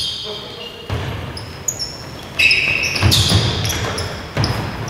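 A basketball bouncing on the court during live play, with an irregular string of thumps, and basketball shoes squeaking on the floor in short, high chirps.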